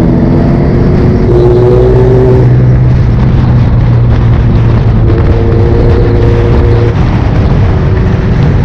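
Motorcycle engine running at a steady pitch while riding, under a loud steady rushing noise.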